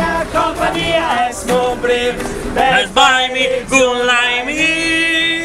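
Several voices singing together in a choir-like melody, ending on a long held note.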